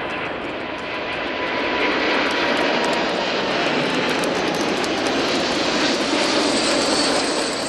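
Boeing 747-8 Freighter's four GEnx turbofan engines at takeoff thrust, a steady loud jet roar as the heavy freighter climbs out just after liftoff, with a faint high whine coming in near the end.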